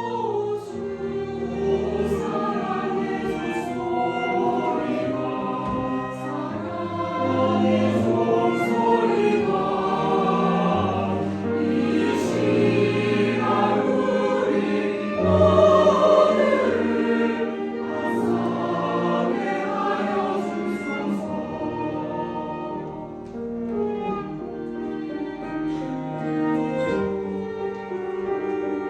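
Church choir singing a hymn in parts, with piano and string (violin and cello) accompaniment.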